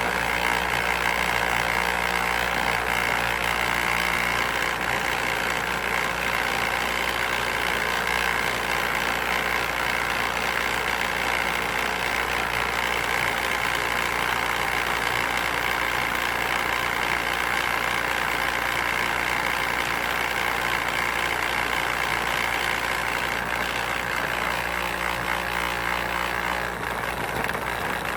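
A motor running steadily with a constant hum and no change in speed.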